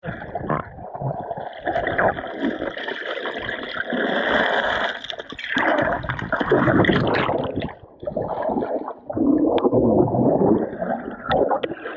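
Creek water sloshing and gurgling as heard from underwater, with churning bubbles as a person wades and moves through it.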